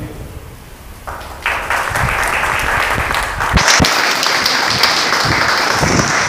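Audience applauding, starting about a second in and growing louder over the next few seconds.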